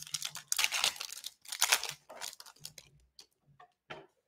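Foil wrapper of a Panini Flux basketball card pack crinkling and tearing as it is ripped open by hand, in a few short crackly bursts, the loudest about half a second and a second and a half in.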